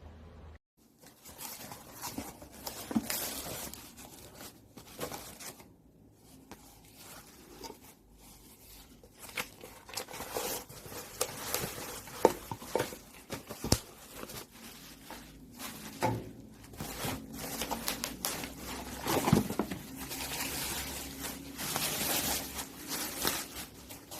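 Rustling, crinkling and tearing of material being handled, with many scattered sharp clicks and knocks.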